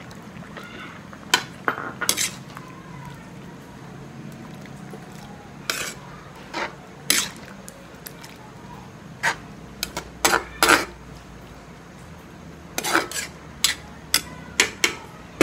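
Metal ladle stirring a liquid stew in a metal wok, knocking and scraping against the pan in sharp clinks at irregular intervals, about a dozen in all, several in quick clusters.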